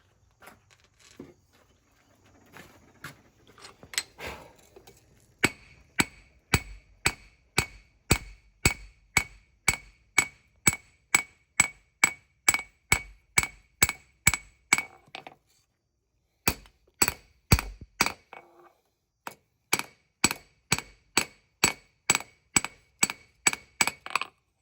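Hand hammer forging hot spring steel on an anvil: a few light taps, then a steady run of about two to three blows a second, each ringing. The hammering breaks off twice briefly in the second half, then resumes.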